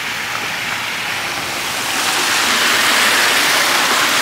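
Water of a large fountain splashing and pouring in a steady rush, getting louder about two seconds in.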